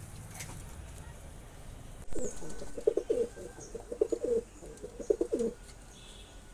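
Male domestic pigeon courtship cooing to a female: a run of low, throaty coos that starts about two seconds in and stops about a second before the end.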